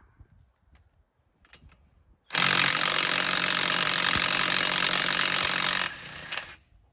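Harbor Freight Bauer 1/2-inch cordless impact wrench hammering on a truck lug nut in one loud burst of about three and a half seconds, starting a little over two seconds in.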